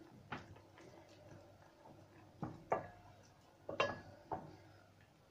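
Wooden spoon knocking against the sides of a small stainless steel pot while stirring nettles in water: about six light, sharp taps spread unevenly, with two close pairs past the middle.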